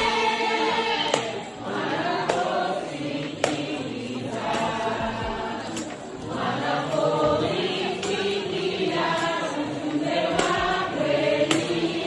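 A large crowd singing together in chorus, with a sharp tap or clap about once a second.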